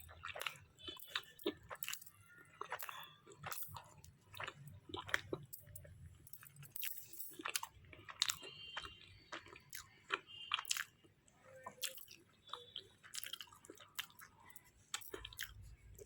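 A person chewing and biting into a chicken shawarma wrap close to the microphone: irregular soft wet mouth clicks and crunches.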